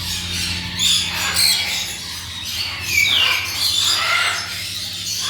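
Many small birds chirping and squawking together in overlapping calls, with a falling whistle about three seconds in. A steady low hum runs underneath.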